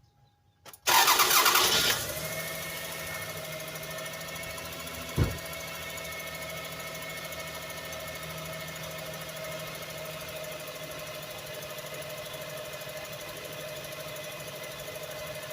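1999 Toyota Sienna's 3.0-litre V6 cranked and started about a second in, loud for a moment as it catches, then settling into a steady idle, with one sharp knock about five seconds in. The engine is misfiring on its number 2 cylinder, which has very low compression that the owner puts down to a bad valve, a burnt valve or a collapsed valve spring.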